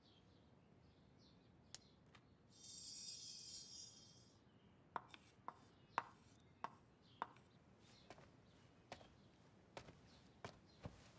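A knife chopping on a cutting board: a dozen or so sharp, uneven chops starting about five seconds in. Before them comes a brief high hiss lasting about two seconds.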